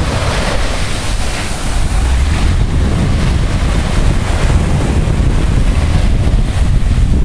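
Small surf waves washing up onto a sandy beach, with wind buffeting the microphone.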